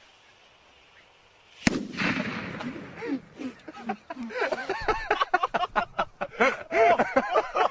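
A faint hiss, then about a second and a half in a single sharp, loud blast from a fused charge set in the ground, with a long rumbling tail. Excited voices and laughter follow.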